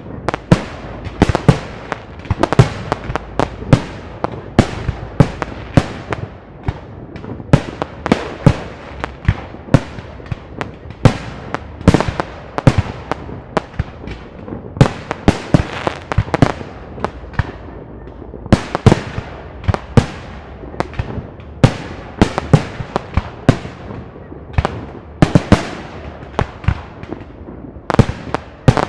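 Park fireworks display: a dense, continuous run of shell bursts, several loud bangs a second, each with a short echoing tail.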